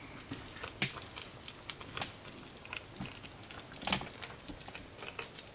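Faint, irregular popping and crackling of a tomato-broth meatball, potato and pea stew simmering in a pan, with a few louder pops about one, two and four seconds in.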